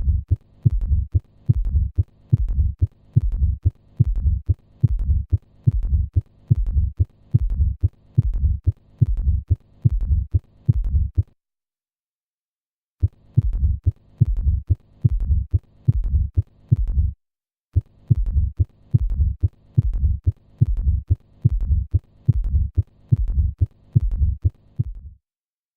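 Recorded heartbeat heard as through a stethoscope: a steady rhythm of low thumps a little over one a second. It breaks off for over a second about eleven seconds in, again briefly near seventeen seconds, and stops just before the end.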